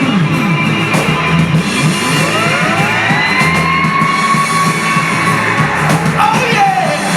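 Live roots-rock band playing, with a long note sliding up and held for a few seconds midway, and voices shouting near the end.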